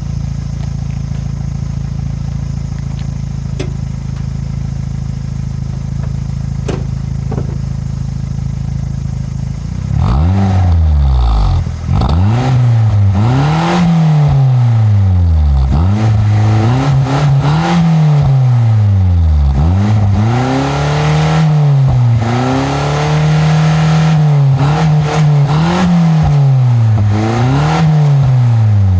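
Daihatsu Mira TR-XX Avanzato R's small four-cylinder turbo engine breathing through an all-stainless Style-Bay Final F2 aftermarket muffler: it idles steadily for about ten seconds, then is revved up and let fall back about eight times in a row, once held at a higher steady rev.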